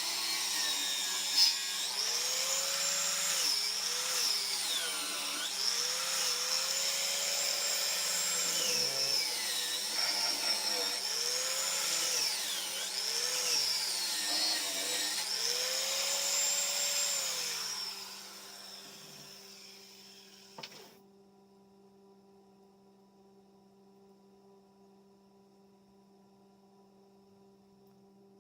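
Hand-held electric power tool running under changing load, its pitch repeatedly sagging and rising again. It winds down about 18 seconds in, leaving a faint steady electrical hum.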